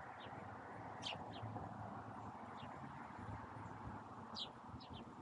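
Finches giving scattered short, high chirps, the clearest about a second in and again near the end, over a steady background hiss.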